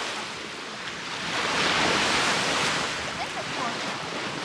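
Small surf washing onto a sandy shore, a steady hiss of breaking water that swells to its loudest about two seconds in, then eases.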